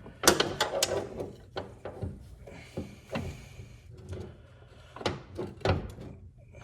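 Irregular clinks and knocks of a wrench against metal mower parts, hand tool work on a bolt, with sharper clatters near the start and again near the end.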